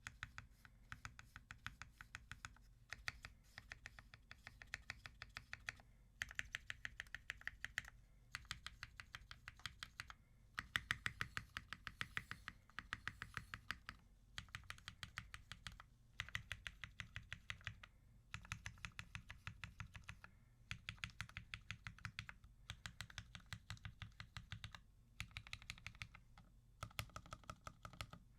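Typing on a Merisi Ottantaquattro mechanical keyboard with lubed and filmed Cherry MX Black linear switches on an aluminium full plate and GMK keycaps. Fast runs of keystrokes come in bursts of one to two seconds, with short pauses between them.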